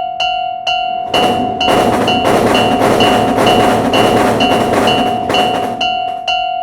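Railroad crossing warning bell ringing steadily, about two strikes a second. From about a second in until near the end, a loud rushing noise covers the bell, as of a train passing through the crossing.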